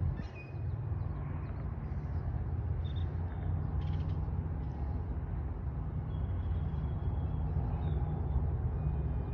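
Boat motor running steadily, a low hum.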